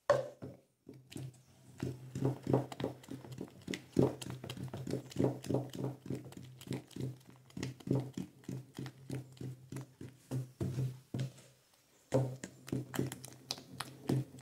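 A wooden spoon stirring a thick homemade detergent mixture in a plastic bucket, knocking and scraping against the bucket's sides in a quick, uneven rhythm, with a short pause about three-quarters of the way through.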